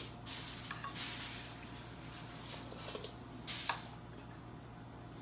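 Quiet eating sounds from a bowl: a spoon sipped from and then clinking and scraping against a ceramic bowl of soup, a few short separate sounds with a small click near the end, over a faint steady hum.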